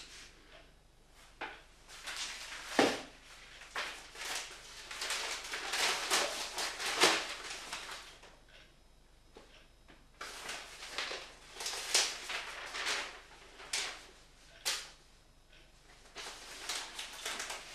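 Newspaper rustling and crackling as the pages are unfolded and turned, in two bouts of handling with a short lull between them.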